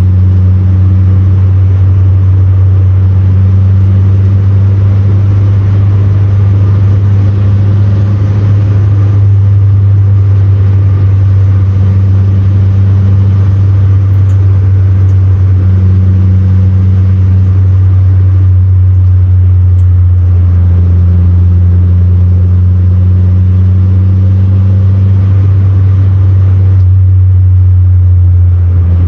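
Steady, loud drone of a 1970 Renault 16 TS heard from inside its cabin while driving: the engine's low hum blends with road and wind noise, with no change in pace.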